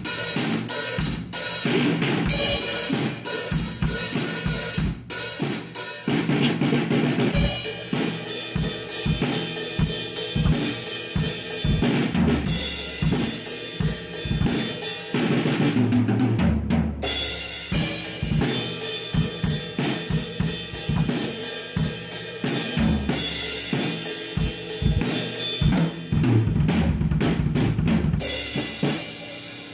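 Acoustic drum kit played continuously: kick, snare, toms and Meinl cymbals, the new tom heads tuned low to medium and damped with Moongel pads, the snare tuned medium to high. The playing stops near the end and the kit rings out.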